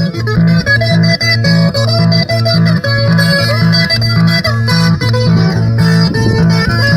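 Instrumental music with no singing: a bass line bouncing evenly between two notes, about two notes a second, under a busy higher melody.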